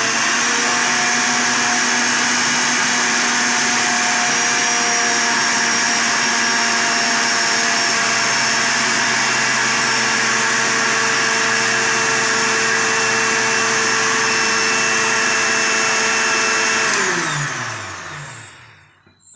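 Sujata electric blender motor running at a steady high speed, blending a thick avocado shake. About seventeen seconds in it is switched off and the motor winds down with a falling whine.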